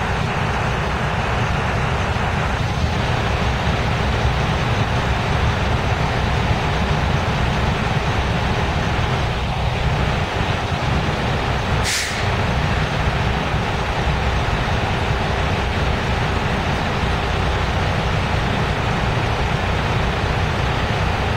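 Freight train of tank cars rolling steadily past at a street crossing, its wheels and cars giving a continuous rumble. About halfway through there is one brief, sharp hiss.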